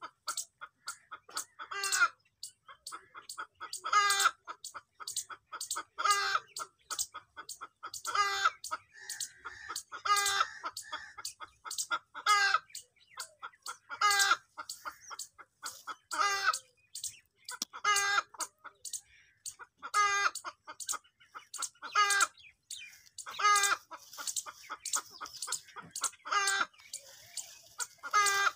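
Domestic hen clucking: runs of quick short clucks, each ending in a louder drawn-out call, repeating about every two seconds.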